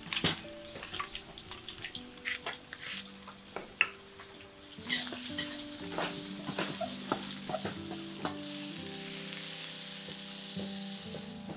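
Food frying in hot oil in a wok, sizzling, with a metal spatula scraping and clinking against the pan; the sizzle grows louder and steadier about halfway through. Soft background music with held notes plays underneath.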